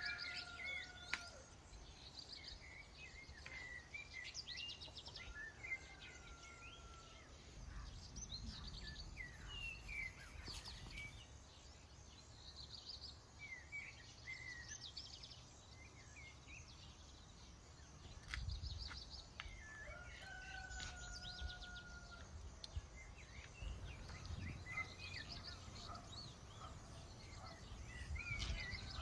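Several small birds chirping and trilling over and over, with a longer, lower held call near the start and again past the middle. A low rumble runs underneath, and there are a few sharp clicks.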